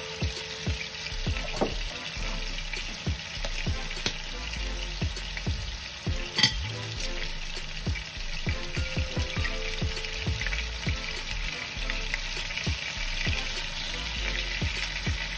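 Sea scallops sizzling steadily in oil and butter in a frying pan, with scattered light clicks and knocks over the sizzle and one sharper click about six and a half seconds in.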